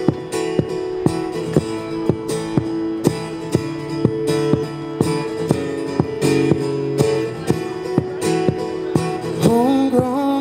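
Acoustic guitar strummed in a steady rhythm, with a sharp accented strum about twice a second over ringing chords. A man's singing voice comes in near the end.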